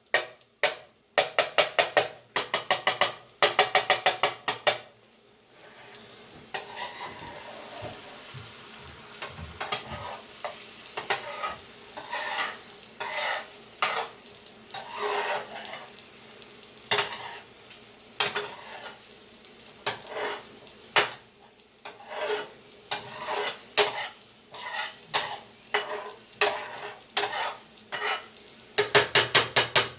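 A spoon scraping and stirring food in a frying pan as it sizzles: quick runs of strokes, about five a second, near the start and again near the end, with single scrapes over a steady sizzle in between.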